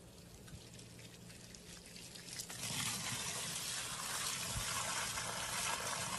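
Irrigation water pouring and rushing into the earth basin around a newly planted date palm offshoot. It swells up suddenly about two and a half seconds in and then runs steadily.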